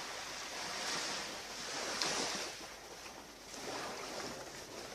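Surf washing onto a beach, rising and falling in swells and loudest about two seconds in.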